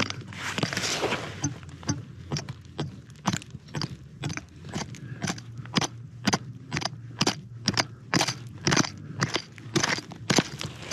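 An irregular run of sharp crunching knocks, about two to three a second, with gritty scraping in the first second.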